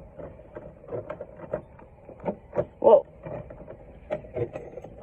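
Irregular knocks and clicks over a faint steady hum, with a woman's short exclamation "whoa" about three seconds in.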